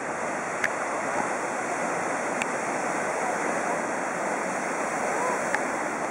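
Surf breaking and washing over coastal rocks: a steady, dense rush of white water. Three brief sharp clicks stand out over it.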